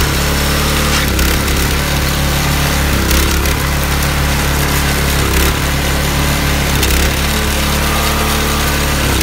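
Petrol two-stage snow blower running steadily under load, its single-cylinder engine holding an even pitch while the auger and impeller chew through deep snow.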